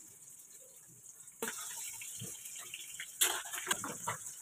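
Watery ground-masala paste poured from a jar into a steel kadhai of fish pieces, the liquid splashing in and getting suddenly louder about a second and a half in. Short metal clinks follow, with a louder clatter near the end.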